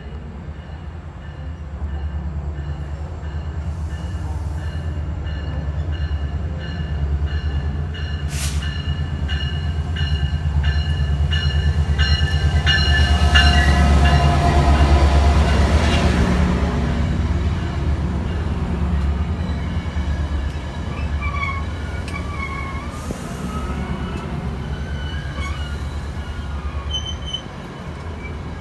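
Locomotive-hauled passenger train approaching and running past close by. The locomotive's low engine drone builds up and is loudest about halfway through as it goes by. Then the stainless-steel bilevel cars roll past with wheel squeal.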